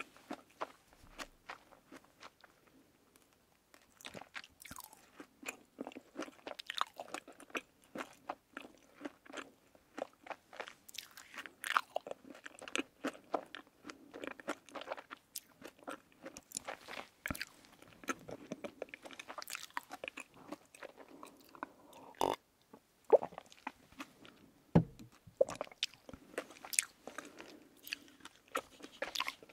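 Close-miked mouth chewing a mouthful of soft sweets, with many short wet clicks and smacks. There is a brief lull about a second in, and then the chewing picks up again and keeps a steady, irregular pace.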